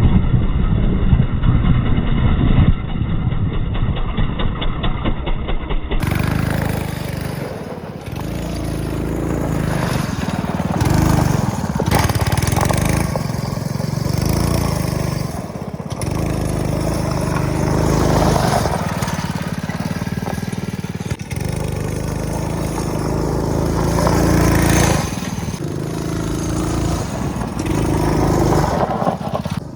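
Off-road buggy's 200cc Honda single-cylinder engine running under load, its pitch rising and falling again and again as the throttle is opened and eased off.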